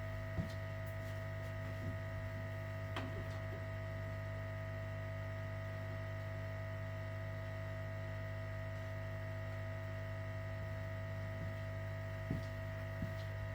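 Steady electrical mains hum with a constant low drone and a few higher steady tones, broken only by a faint click about three seconds in.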